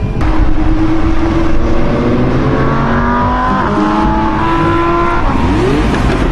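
Audi R8's V10 engine revving hard under acceleration, its pitch climbing and dropping back twice as it shifts up through the gears.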